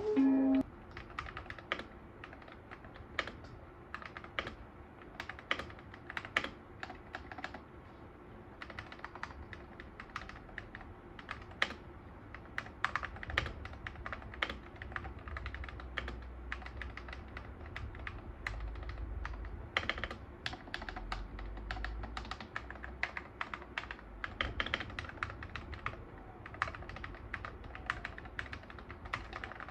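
Typing on an Akko MonsGeek FUN60 60% mechanical keyboard: a continuous, uneven stream of keystroke clicks, several a second.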